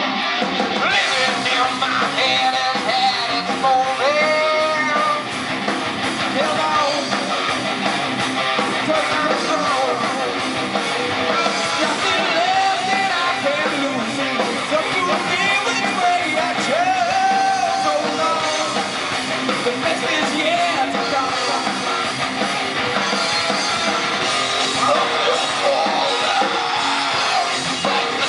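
Rock band playing a song live: electric guitars with a singer.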